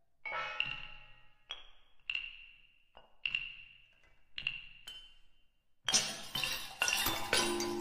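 Contemporary solo percussion played with hard mallets. After a brief silence come about eight separate struck notes, each ringing high and fading away. About six seconds in they give way to a sudden dense flurry of loud, rapid strikes.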